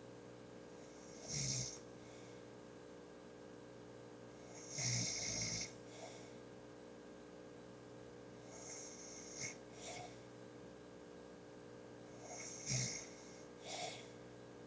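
A man snoring in his sleep, in irregular snores. The longest and loudest comes about five seconds in, with weaker ones in between.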